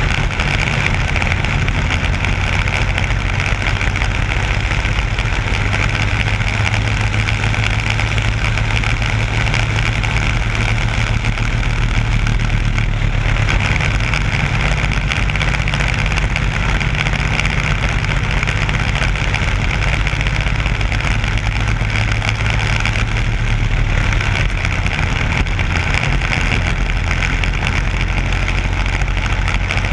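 Single-cylinder four-stroke Briggs & Stratton Animal kart engine running hard at racing speed, heard on board the kart. Its note holds fairly steady, easing briefly about a third of the way in.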